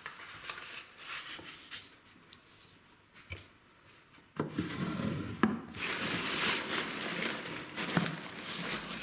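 Quiet rubbing and sliding of a small wooden box's drawer with a paper card being handled, a click about three seconds in, then from about four and a half seconds in louder rustling and crinkling of crumpled packing paper as the wooden box is set into a cardboard carton, with a few knocks.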